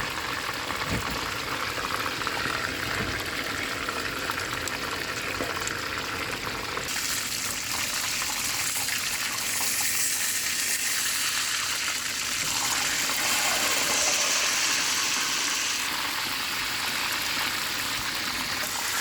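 Whole chicken deep-frying in hot oil: a steady sizzling hiss with fine crackling, which grows brighter about seven seconds in.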